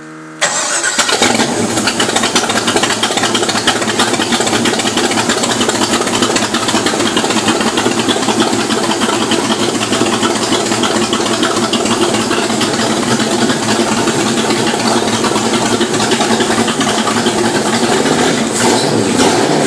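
Supercharged 350 small-block Chevy V8 with a Weiand 142 blower fires up about half a second in and runs loud and steady. The revs rise a little near the end as the throttle is worked.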